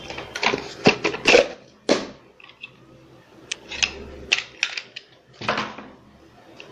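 Handling noise from small plastic parts and packaging on a desk: a string of irregular sharp clicks and taps, with a short stretch of rustling about five and a half seconds in.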